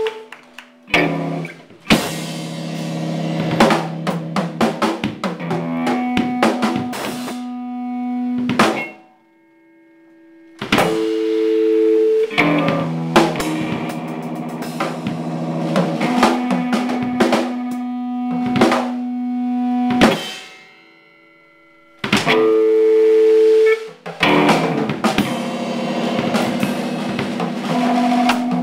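A band playing a song: drum kit with snare and bass drum over held notes, breaking off twice into brief pauses.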